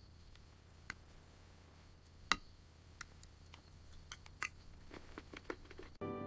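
Faint steady low hum with scattered sharp clicks and taps, coming closer together in the second half.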